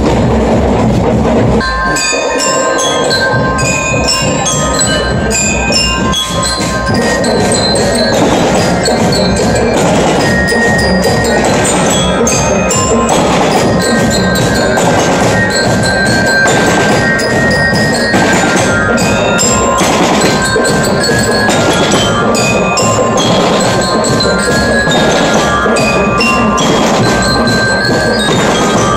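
Marching band playing a tune on bell lyres over snare and bass drums. The drums start alone, and the bright bell-lyre melody comes in about two seconds in.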